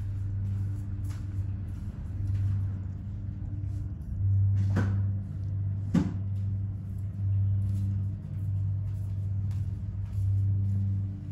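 Background music carried by a deep, low bass drone that swells and fades in roughly one-second pulses, with two sharp clicks about five and six seconds in.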